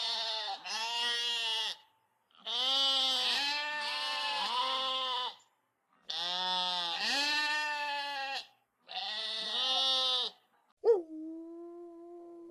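Four long, quavering bleats from small livestock, one after another with short gaps. Near the end a sudden loud onset gives way to a steady, held howl.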